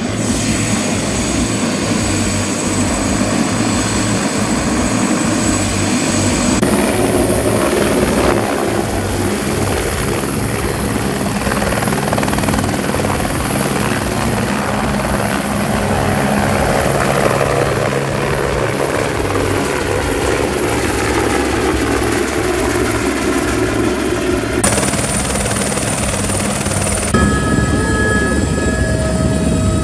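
Helicopter engine and rotor running steadily, heard close by from the helipad as the helicopter hovers and lifts. Near the end the sound changes abruptly to the inside of the cabin, where it becomes a steady whine over the engine noise.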